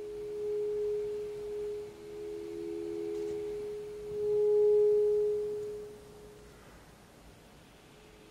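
Saxophone playing soft, long held notes with an almost pure tone, layered with its live-recorded playback: two pitches a little apart swell and fade, at times sounding together. The loudest swell comes about four seconds in and fades out by about six seconds.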